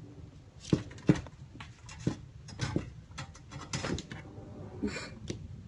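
A kitten's claws scratching and scrabbling on a panel as it climbs, a string of irregular scrapes and taps.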